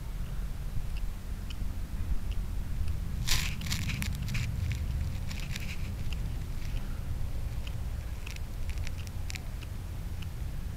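A cat chewing and crunching on a dead black squirrel: scattered sharp clicks and crunches, densest about three to five seconds in and again near the end, over a steady low rumble.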